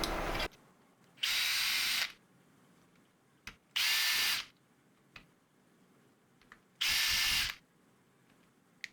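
A cordless power drill/driver run in short bursts of under a second each, three full runs about three seconds apart, the first cutting off about half a second in. It is backing out the fasteners that hold the skateboard's hub motors together, with a few light clicks in between.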